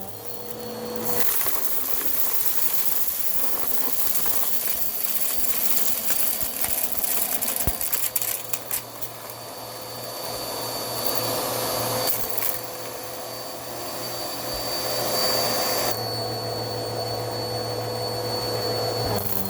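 Bissell vacuum cleaner running up close, its motor and spinning brushroll making a steady whine over a rushing hiss. It gets louder about a second in.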